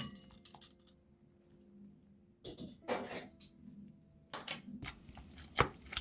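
Kitchen utensils clattering against dishes in several short bursts, over faint background music.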